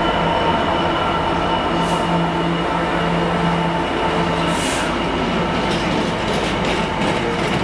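A Freightliner Class 66 diesel-electric freight locomotive, with its EMD two-stroke V12 engine, passes at speed, followed by a train of empty container flat wagons. Its steady engine drone fades after about four seconds as the wagons rumble by, with the wheels clicking over rail joints in the second half.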